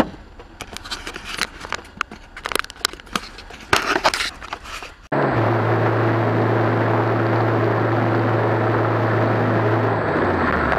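Dash-cam car audio: scattered sharp clicks and knocks for about five seconds, then an abrupt cut to steady road and engine noise with a low hum.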